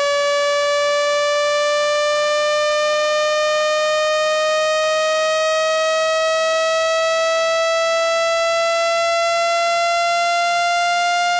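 Synthetic water-eject tone: a single continuous electronic tone with strong overtones, gliding slowly and steadily upward in pitch. It is a sweep made to vibrate a phone speaker hard enough to push trapped water out of it.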